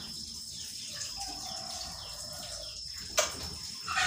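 Washing at a kitchen sink: water splashing and sloshing in a plastic basin, with one sharp knock about three seconds in.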